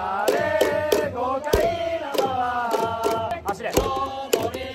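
Crowd of Hanshin Tigers fans singing a batter's cheering song in unison, with long held notes and sharp beats keeping the rhythm.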